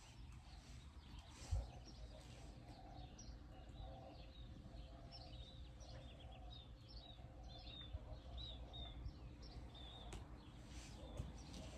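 Faint outdoor birdsong: many short, high chirps in quick runs, over a low rumble, with a single thump about a second and a half in.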